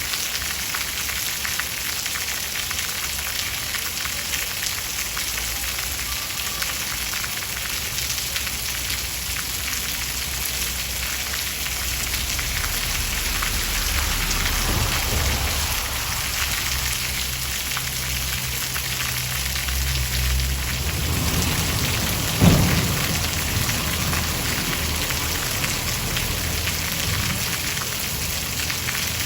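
Steady heavy rain hissing throughout, with a long low rumble of thunder building about halfway through and a sharper, louder thunderclap about three quarters of the way in.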